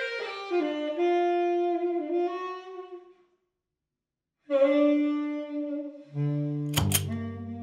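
Saxophone playing slow, held jazz notes, with a silent pause about halfway through. Near the end a low bass line comes in, along with two sharp percussive hits.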